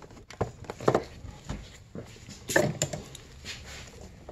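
Irregular light clicks and knocks of gloved hands handling a hose, hose clamp and fittings on a snowmobile engine. The loudest knock comes about two and a half seconds in.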